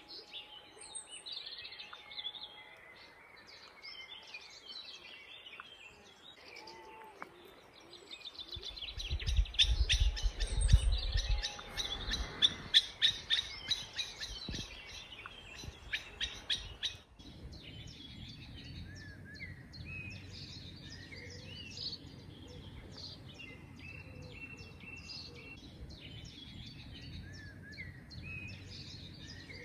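Garden birds singing and calling, a mix of chirps and short whistled phrases. In the middle a nearer bird sings louder, with rapid repeated notes. About a third of the way in there is a brief low rumble.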